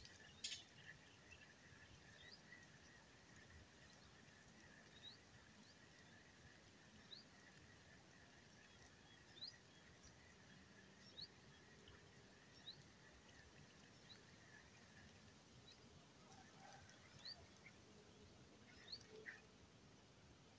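Near silence: faint outdoor ambience with short, high, rising chirps every second or two and a faint steady high drone underneath.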